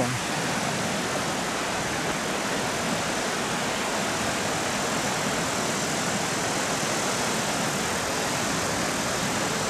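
Flood-swollen creek rushing steadily in a white-water churn, an even unbroken rush of water.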